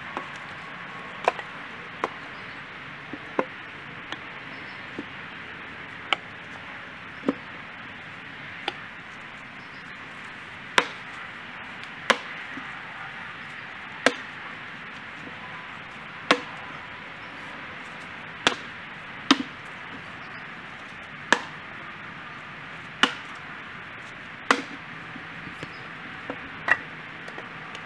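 Fiskars X27 splitting axe chopping firewood rounds held upright in a tire: a string of sharp wooden cracks and thwacks at uneven intervals, roughly one every one to two seconds, as the rounds are split.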